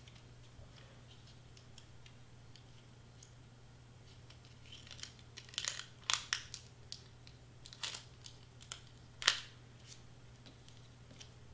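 Hands handling glitter cardstock on a cutting mat: faint paper rustling and crinkling with a handful of sharp ticks and taps from about five to nine seconds in, the loudest near the end of that stretch. A steady low hum sits underneath throughout.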